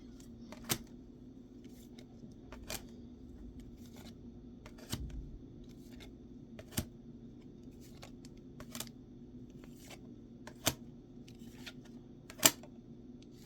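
Sharp clicks of trading cards being handled and set down one after another, about one every two seconds, over a steady low hum.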